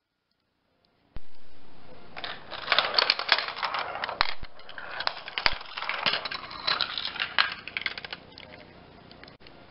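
Marbles rolling and clattering through a GraviTrax plastic marble run. After a brief silence, a dense run of clicks and rattles starts suddenly about a second in and thins out near the end.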